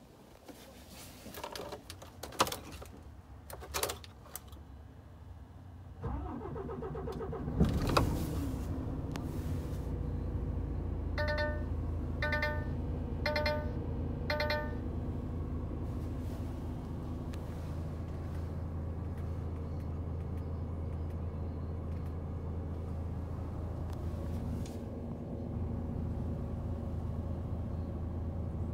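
Paccar Euro 6 diesel engine of a DAF CF440 truck, heard from inside the cab: a few clicks from the ignition, then the starter cranks and the engine catches about eight seconds in and settles into a steady idle. Soon after it catches, the dashboard gives four short warning beeps while the instruments show a low fuel warning.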